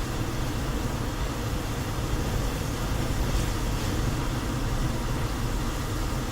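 A car driving along steadily, with continuous engine and tyre noise and a brief faint hiss a little past the middle.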